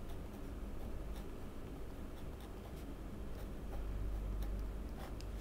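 Fountain pen nib scratching on paper in faint, intermittent strokes as a drawing is inked.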